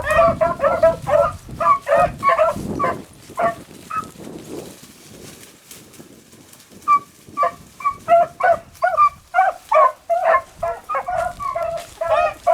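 A pack of beagles baying in quick repeated calls as they run a rabbit's track. The calls thin out and grow faint about four seconds in, then come back strong about seven seconds in as the pack turns back in.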